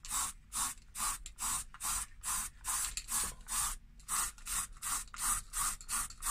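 Aerosol spray paint can hissing in quick short bursts, about four a second, as the nozzle is pressed and released again and again to lay a top coat a small area at a time.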